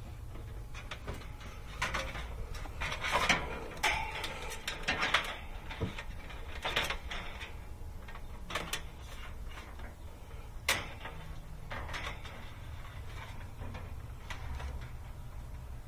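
Hands pulling and feeding electrical wires through the sheet-metal top panel of an AC condenser: scattered rustles, scrapes and clicks of handling, busiest in the first two-thirds, over a low steady background rumble.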